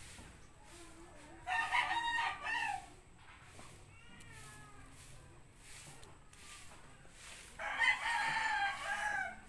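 Rooster crowing twice, each crow lasting a little over a second, about six seconds apart.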